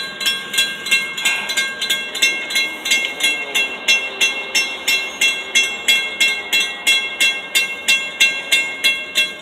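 Railroad grade-crossing warning bell ringing steadily at about two and a half strikes a second as the crossing gates come down for an approaching train, stopping near the end.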